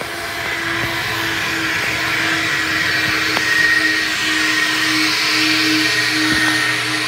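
Coin-operated car wash vacuum running: a steady motor hum and whine over rushing, hissing air, swelling a little about halfway through.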